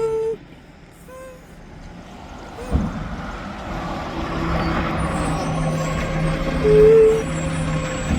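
A steady whistle-or-horn blast cuts off just after the start. A thump comes near three seconds in, and then the diesel engine of a Mack McNeilus front-loader garbage truck builds to a steady run. A short, loud toot sounds about seven seconds in.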